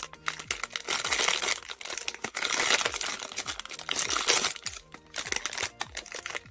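Thin foil blind-box pouch crinkled and handled: dense, crisp crackling of the metallic foil, easing off near the end.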